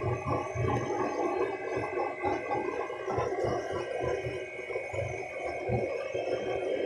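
Used-oil stove burner burning with blower-fed air: a steady rushing noise with an irregular low fluttering rumble from the flame and a faint steady whine over it.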